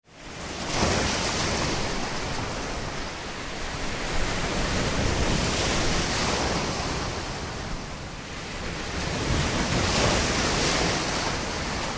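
A rushing noise like surf, fading in over the first second, then swelling and easing about every four to five seconds.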